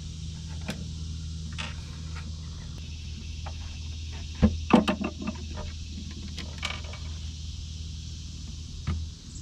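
Sharp metal clicks and clinks from a screwdriver backing out screws and a metal piano hinge being handled as a cabinet door comes off, loudest in a quick cluster about halfway through. Under it runs a steady low hum that stops near the end.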